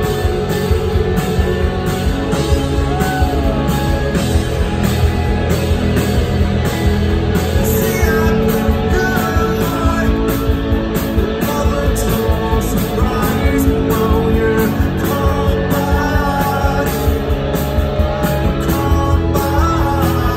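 Live rock band playing loud over a steady drum beat, with electric guitars and keyboards, and a man singing.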